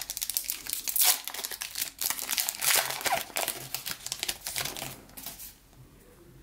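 Foil wrapper of a 2019-20 Revolution basketball card pack being torn open and crinkled in the hands as the cards are pulled out. The crackling comes in dense spurts, loudest about one second and again about three seconds in, and dies away after about five and a half seconds.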